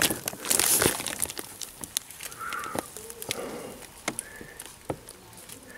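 Plastic-wrapped wooden boards handled in a cardboard crate: scattered knocks, taps and crinkling of the wrap film. A bird calls a few times in short calls.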